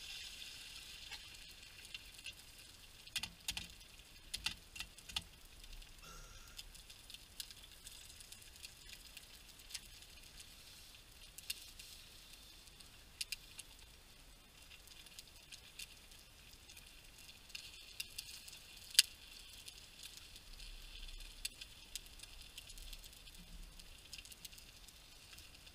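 Eggs sizzling as they fry in a small camping frying pan, a steady high hiss that eases and then picks up again. There is a cluster of small clicks a few seconds in, and one sharp knock about three quarters of the way through.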